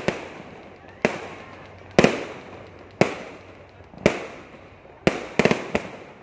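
Aerial fireworks bursting overhead: sharp bangs about once a second, each trailing off in echo. Near the end comes a quick run of three or four bangs.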